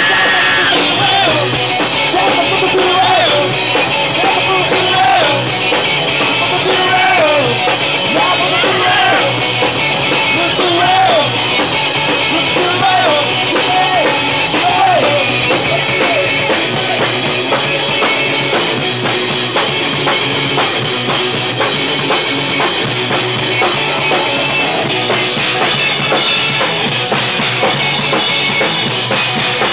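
Loud rock music with a drum kit prominent, in a punk-rock vein. In the first half a melody line repeatedly slides up and down in pitch over the dense band sound.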